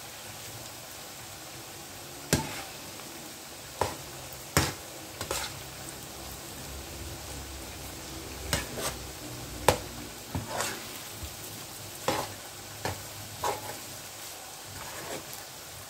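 Fried rice frying in an oiled frying pan, a steady sizzle, as it is stirred with a metal slotted spoon that clacks and scrapes against the pan at irregular intervals, about every second or so.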